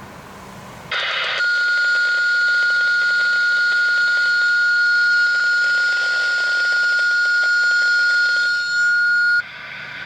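A steady, single-pitch radio alert tone from a scanner, lasting about eight seconds. It opens with a short burst of static as the channel keys up and cuts off suddenly. It is the attention tone that comes before a dispatcher's announcement of the monthly outdoor warning siren test.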